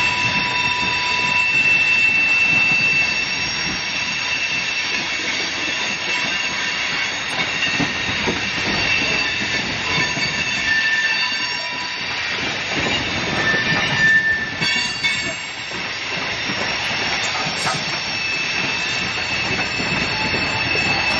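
Freight train of coal cars rolling past, its steel wheels rumbling on the rail. Steady high-pitched wheel squeal rides over the rumble, the squeal of wheels taking a curve, and it swells briefly near the middle.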